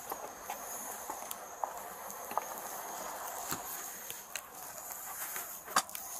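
Handling noise on a body-worn camera: scattered light clicks and rustles over a steady high hiss, with one sharper knock near the end.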